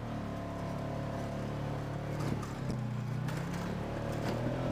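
Polaris RZR side-by-side's engine running steadily under load as it climbs a rutted dirt trail, the note dipping briefly midway, with a few knocks and clatters as the machine jolts over the ruts.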